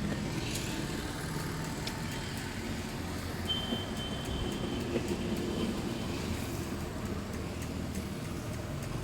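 Steady traffic rumble, with a few faint metallic clicks from a spanner working on a moped's rear axle nut and chain adjusters. A brief thin high squeak comes about halfway through.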